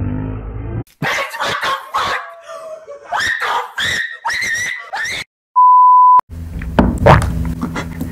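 High-pitched squealing cries with wavering pitch for a few seconds, then a single steady beep tone lasting under a second, the loudest sound here; voices and a low hum come in after it.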